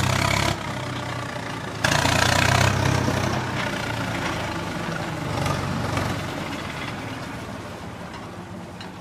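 Motor of a mini bulldozer running: a steady low hum with a noisy rattle over it. It changes level abruptly about half a second and about two seconds in, then fades gradually toward the end.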